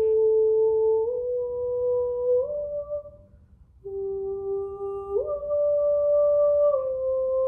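A woman humming a slow, wordless melody of long held notes that step up and down in pitch, with a short break for breath about three seconds in.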